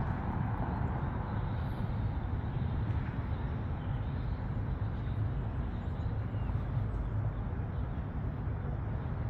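Steady city-street background noise: a low, even rumble of road traffic with no single vehicle standing out.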